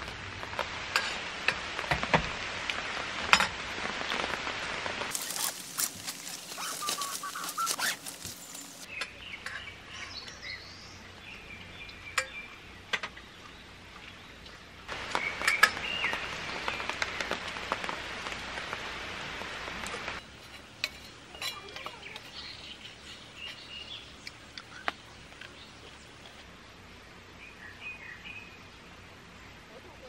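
Rain pattering on the tent, coming and going in spells, with scattered louder drops striking; a few bird chirps are heard in the lulls.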